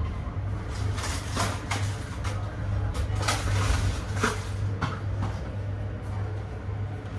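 Inside a 25G soft sleeper railway carriage under way: the steady low rumble of the train running, with a few short rattles and knocks from the car about a second, three seconds and four seconds in.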